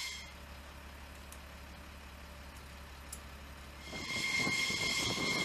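A low steady hum, then about four seconds in the high steady whine of an F-15's idling jet engines comes in over a rumble, as the jet is hot-pit refueled with its engines running.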